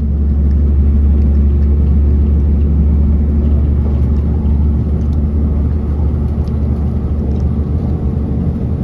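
Steady low rumble and drone of a Northern Ireland Railways 4000 class diesel multiple unit running along the line, heard inside the carriage, with a few faint clicks now and then.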